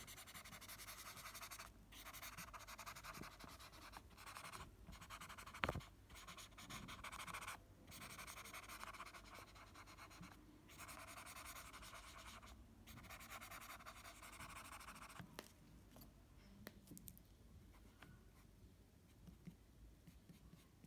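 Folded paper tissue rubbing over pencil shading on paper to blend the graphite: a soft, faint scratchy rubbing in strokes of one to two seconds with short pauses, dying down to a few light ticks after about fifteen seconds.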